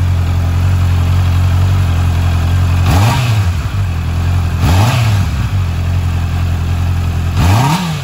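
Honda CBR650R's inline-four engine through its stock exhaust, idling steadily and blipped three times, each rev rising and dropping quickly back to idle.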